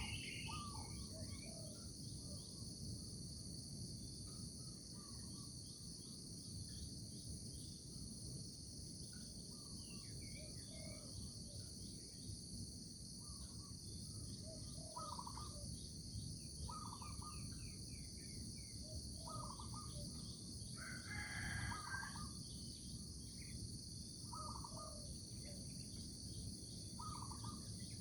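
Morning rural ambience: a steady, high-pitched drone of insects with birds calling in short phrases about every two seconds, over a low background rumble. A louder call stands out about three-quarters of the way through.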